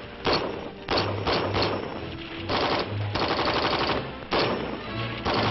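Military rifle fire: single shots and rapid automatic bursts in quick succession, with music playing underneath from about a second in.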